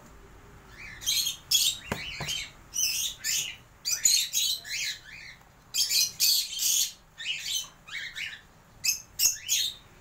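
Cockatiels squawking and chirping: a steady run of short, harsh, high calls, some of them rising in pitch, with a faint knock about two seconds in.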